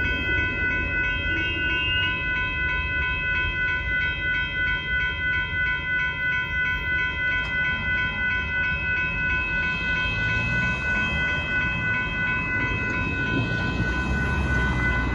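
Grade-crossing warning bell ringing steadily over the low rumble and rhythmic clatter of a Union Pacific autorack freight train rolling past; a car passes near the end.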